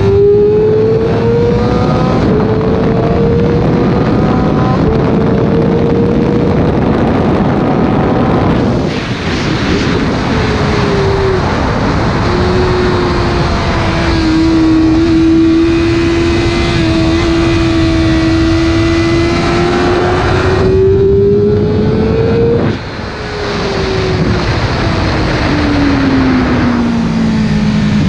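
Yamaha sport motorcycle's engine at track pace with strong wind rush: it revs up through the gears with quick upshifts at the start, eases off with blipped downshifts just before the middle, holds steady through a long corner, then climbs and is cut off sharply about two-thirds of the way in, the revs falling away through downshifts near the end.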